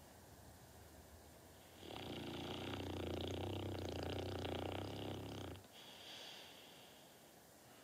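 Dogue de Bordeaux (French mastiff) snoring in its sleep: one long snore starts about two seconds in, lasts some three and a half seconds and stops sharply, followed by a fainter breath.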